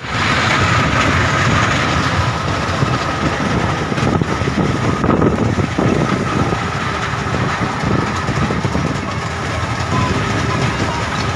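Small amusement-park ride train running along, heard from inside one of its carriages: a steady running noise with a faint high steady whine.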